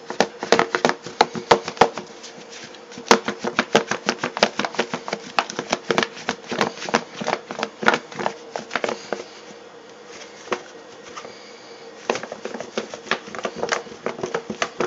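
Pieces of squirrel meat rattling and knocking inside a lidded plastic container as it is shaken with flour, a fast, uneven clatter. The shaking stops for about two seconds past the middle and then starts again.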